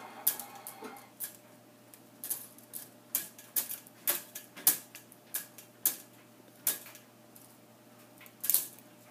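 Slats of horizontal window blinds clicking and clattering as a kitten bats and tugs at them with its paws: irregular sharp clicks, one or two a second.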